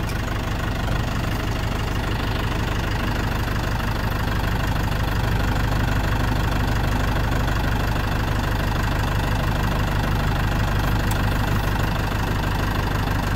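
Tractor engine running steadily at idle, with an even low pulsing throb.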